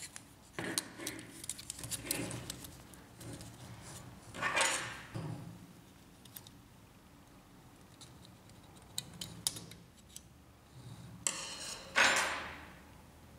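Light clicks, scrapes and metallic clinks from handling the plastic and metal parts of a laser printer fuser unit as a spring is hooked back on with a metal pick. They come in scattered bursts, loudest about four and a half seconds in and near the end.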